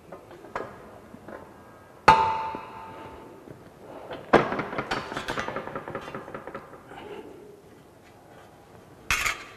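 Manual sheet-metal bending machine worked to fold a louver. About two seconds in there is a sharp metallic clank that rings on for a moment. A second clank comes about four seconds in, followed by a rattle of sheet metal, and a short burst of noise near the end.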